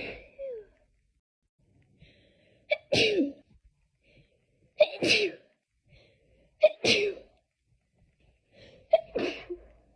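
A person sneezing over and over in a fit, four sneezes about two seconds apart, each a sharp catch followed at once by the explosive burst.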